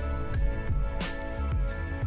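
Background instrumental music: held notes over a steady beat, about one beat every two-thirds of a second.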